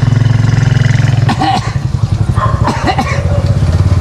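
Motorcycle engine running steadily with a fast, even beat. In the middle it grows weaker for a couple of seconds while a few short calls that rise and fall in pitch, like voices, sound over it.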